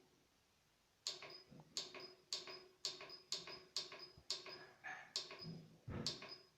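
Buttons on a pellet stove's control panel pressed repeatedly, about ten clicks at roughly two a second, each with a brief high ringing tone, as the temperature is set.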